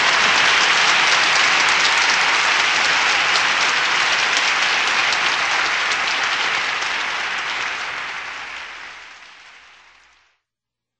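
Applause from many hands clapping at once, steady at first, then fading away to nothing about ten seconds in.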